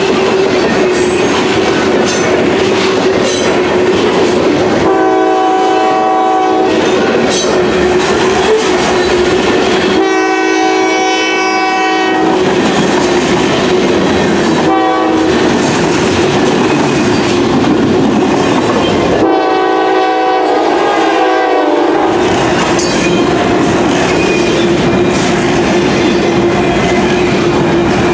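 Diesel locomotive horn sounding the grade-crossing signal, long, long, short, long, over the steady rumble and wheel clatter of a moving train.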